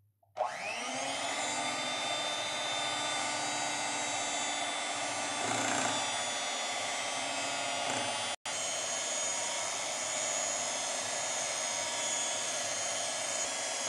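Electric hand mixer running steadily, its beaters whirring through chocolate cake batter in a glass bowl. It spins up about half a second in and cuts out for an instant about eight seconds in.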